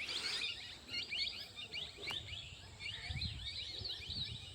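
Parrots chirping, a rapid string of short, high, downward-sliding calls, with a single click about two seconds in and a low rumble near three seconds.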